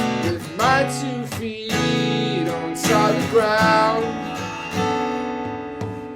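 Martin GPCPA4 acoustic-electric guitar strummed in chords, with a man singing held, sliding notes over it about a second in and again about three seconds in. The chords ring and slowly fade toward the end.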